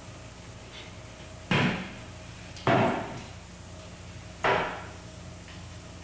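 Three heavy thumps on a stage floor, spread over about three seconds, each dying away quickly, as two dancers drop onto the floor. A faint steady hum runs underneath.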